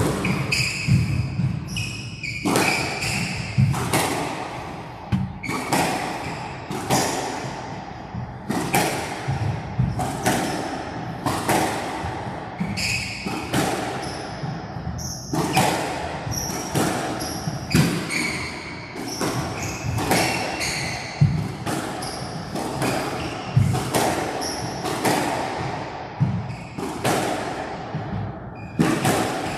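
Squash rally: the ball cracks off rackets and walls in quick succession, roughly one hit a second, with short squeaks of court shoes on the wooden floor between hits.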